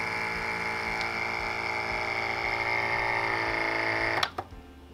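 Anova vacuum sealer's pump running with a steady hum as it draws air out of a bag of marinated meat, then cutting off suddenly with a click about four seconds in. Only part of the air is drawn out, so that the marinade is not sucked up into the sealer.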